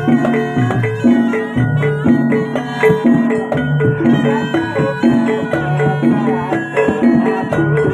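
Traditional Javanese gamelan music accompanying a jaranan dance: struck, ringing tuned percussion plays a steady repeating pattern over deeper sustained tones.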